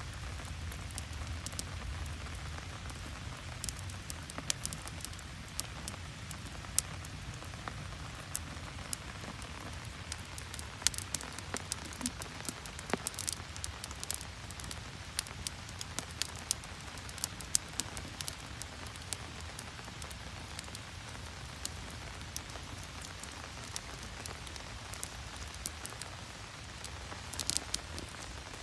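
Steady rain, with many sharp individual drops striking a surface at irregular moments, a brief thicker cluster of hits near the end.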